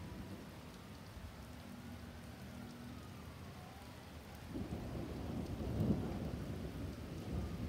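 Steady rain falling on wet pavement, with a low rumble of thunder rolling in about halfway through and swelling to its loudest near the end.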